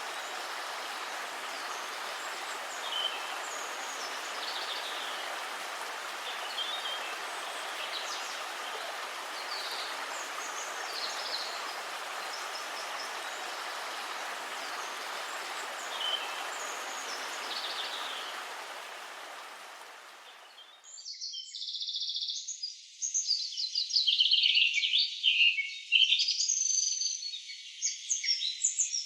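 Steady rushing of a stream or waterfall with small birds chirping over it. About two-thirds of the way through, the water sound cuts off abruptly and close, loud bird song carries on alone, thin and without any low end.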